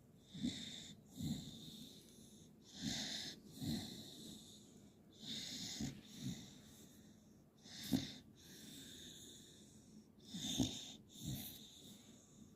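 A sleeping dog snoring: about five slow breaths, each heard as two rasping sounds close together (in and out), roughly every two and a half seconds.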